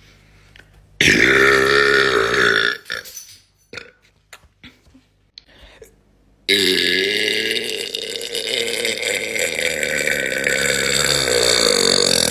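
A woman burping twice: a burp of about two seconds starting about a second in, then, after a pause, a long drawn-out burp of about seven seconds that begins about halfway through.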